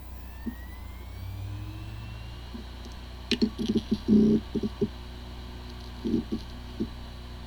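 Laptop hard drive powering up: a faint rising whine as the platters spin up over a steady hum, then two clusters of rapid clicks and knocks, the clicking of a failing drive.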